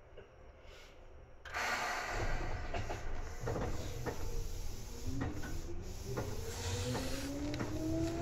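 Seibu 2000 series electric train starting off from a stop. A sudden rush of hiss comes about a second and a half in, followed by the rumble of the car getting under way. From about halfway through, the traction motors whine steadily higher in pitch as the train accelerates.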